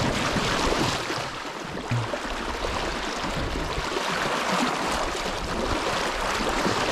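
Fast, shallow river water rushing steadily over a gravel bed.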